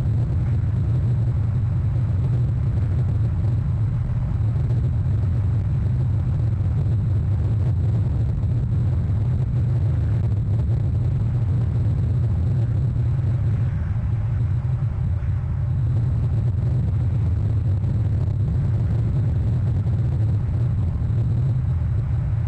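Steady low rumble of a fishing boat's engine running as the boat passes close offshore, holding an even level throughout.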